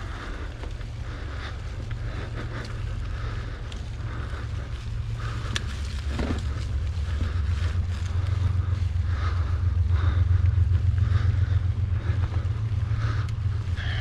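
Low rumble of wind buffeting the microphone of a chin-mounted helmet camera, growing louder about halfway through, with soft hissing puffs roughly once a second.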